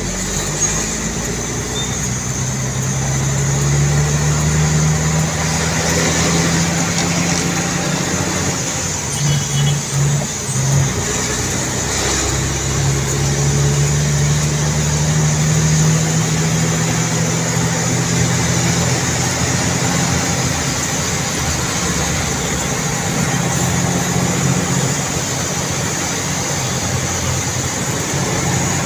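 Engine and road noise heard inside the cab of a heavy vehicle on the move: a steady engine drone that breaks into a few short pulses about nine seconds in, then settles back to a steady drone.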